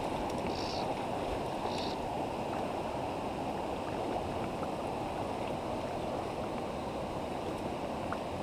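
Small river running over rocks: a steady rush of shallow water through a riffle. Two brief faint high-pitched sounds come in the first two seconds.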